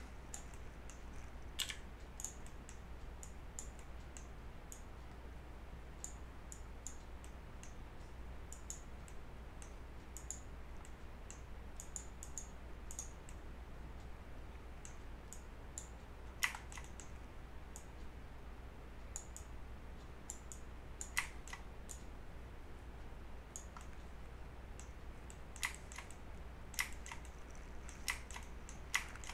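Faint, irregular clicks of a computer mouse and keyboard, a few of them louder, over a low steady hum.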